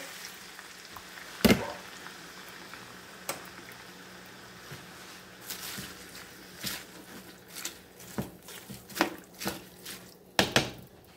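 Warm water poured into a hot pan of shredded cabbage, with a low sizzle and a couple of sharp knocks early on. From about halfway, a spatula stirs the cabbage, an uneven run of scrapes and taps against the pan.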